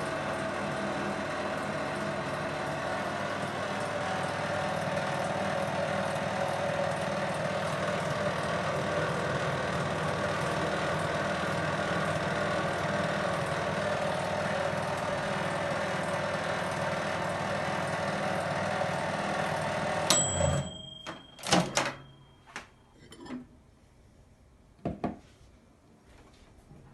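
Microwave oven running with a steady rattling hum, which cuts off suddenly about twenty seconds in. A thin high tone follows for a couple of seconds, then several sharp knocks and clicks.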